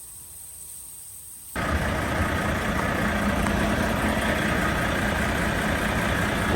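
Semi truck's diesel engine idling steadily, coming in abruptly about a second and a half in after a quiet start.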